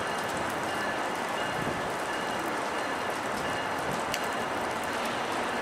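F40PH-2 diesel locomotive running as it pulls a passenger train out, heard from afar as an even hiss with a faint steady whine. A single sharp click comes about four seconds in.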